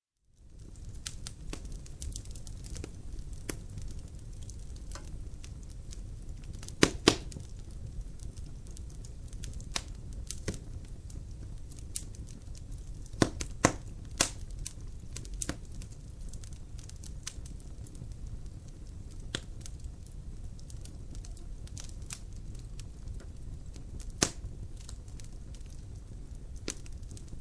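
Wood fire crackling in a fireplace: a low steady rumble of flames with scattered sharp pops, the loudest a pair about seven seconds in and another pair about thirteen seconds in. Fades in from silence at the start.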